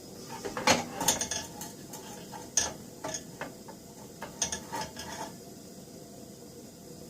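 Brass padlock being turned over on a gas burner: a run of metal-on-metal clinks and scrapes, the loudest about a second in and again near two and a half seconds, stopping after about five seconds.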